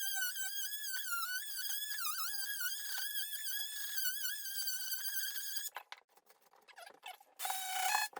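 DeWalt 20V oscillating multi-tool running with its blade in a tile joint, a steady high whine that wavers and dips in pitch as the blade loads up while cutting out tile spacers. It stops about two thirds of the way through, then runs again briefly near the end.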